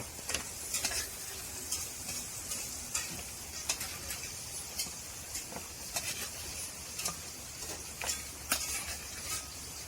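Squirrel meat sizzling in a pan on the fire, with scattered sharp clicks of a utensil stirring against the pan. The meat is fully cooked.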